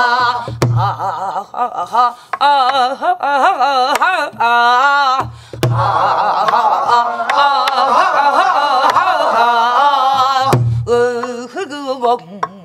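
Female singing of a Namdo folk song phrase, the voice sliding and wavering in wide vibrato, accompanied by a buk barrel drum: three deep thumps about five seconds apart, with sharp stick clicks between them.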